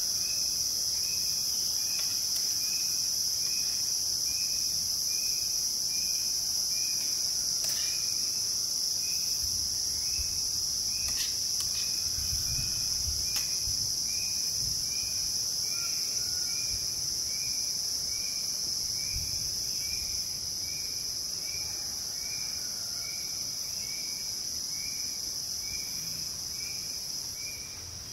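Dense rainforest insect chorus: a steady, high-pitched drone, with a lower chirp repeating a little under twice a second. A few soft clicks and knocks come near the middle.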